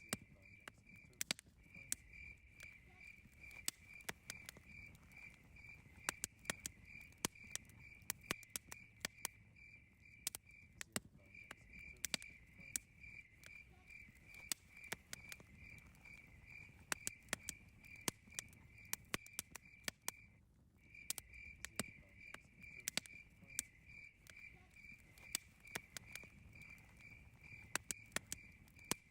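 Campfire crackling with frequent sharp pops and snaps over a low murmur of burning. Behind it, crickets chirp in a steady high pulsing trill, a few pulses a second, that breaks off briefly a few times.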